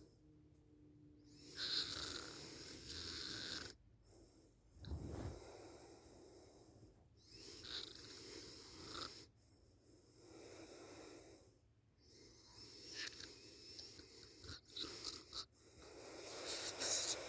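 A sleeping person snoring, slow rhythmic breaths a few seconds apart, with one deeper, louder snore about five seconds in.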